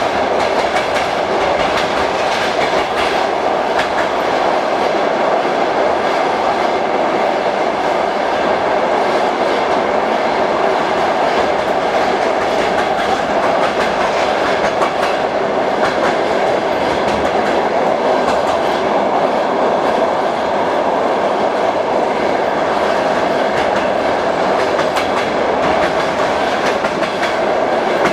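Passenger train wheels rattling over the rails, heard through an open compartment window. It is a steady, loud rumble with scattered clicks from the rail joints.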